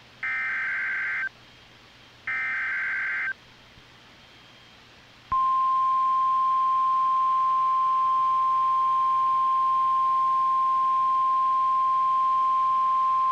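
NOAA Weather Radio emergency alert signalling a tornado warning: two short electronic data bursts of the SAME header, each about a second long with a second between them. About two seconds later the steady, single-pitch 1050 Hz Warning Alarm Tone starts and holds.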